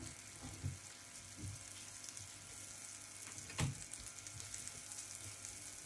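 Melted butter sizzling faintly in a hot non-stick frying pan as it heats towards golden brown, stirred with a spatula. A few soft knocks of the spatula against the pan sound over it, the clearest about three and a half seconds in.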